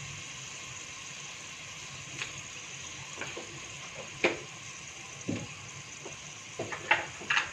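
Hot oil sizzling steadily in a metal pot around fried onions, ginger-garlic paste, turmeric and crushed red chilli, the spices frying in the oil. A few sharp clicks break the hiss, more of them near the end.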